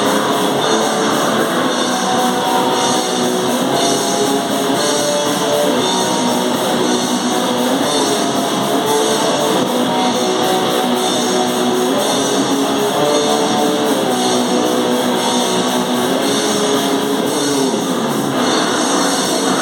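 Hardcore noise-metal band playing live: a heavily distorted electric guitar riff over drums, loud and dense.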